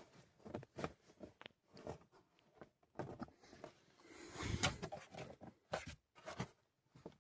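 Light plastic clicks and knocks of a pickup's glove box being handled and worked loose from its stops, with a louder rattling cluster about four and a half seconds in.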